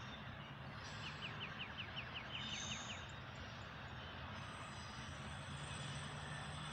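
Double-stack container freight train rolling past, a steady rumbling rush of wheels on rail. About a second in, a bird gives a quick run of about ten short descending notes lasting roughly two seconds.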